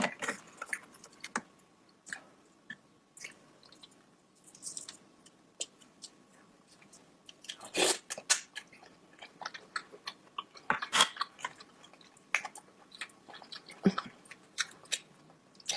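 Close-miked eating: wet chewing and biting with scattered short smacks and clicks, and louder bites about 8 and 11 seconds in.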